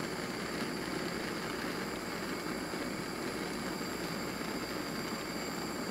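Handheld gas torch flame burning with a steady, even hiss while it heats solder into a crimped lug on a heavy battery cable.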